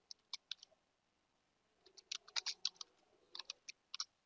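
Computer keyboard keys clicking as a terminal command is typed: a few keystrokes, a pause of about a second, then a quick run of keystrokes and a few more.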